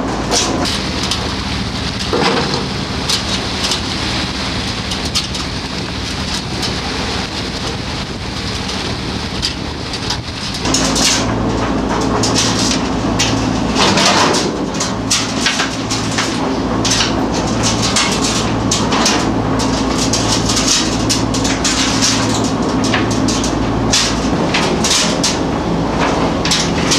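Fishing boat's engine and deck machinery running steadily, with a continual clatter of net gear and fish being handled as a gillnet is hauled and picked. About eleven seconds in the machinery gets louder and a low throb repeats about once a second.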